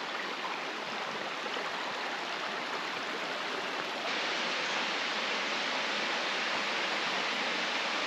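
Steady rush of flowing water from a forest creek and waterfall, a little louder about four seconds in.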